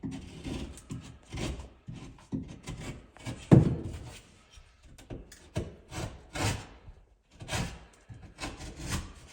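Hand saw cutting through drywall in uneven rasping strokes, about one a second, with one louder knock about three and a half seconds in.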